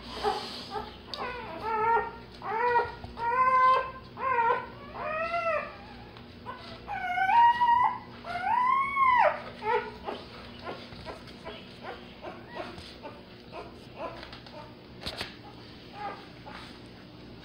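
Newborn Labrador retriever puppy crying: about nine high squeals, each rising and falling in pitch, over the first nine or ten seconds. After that only faint soft clicks remain.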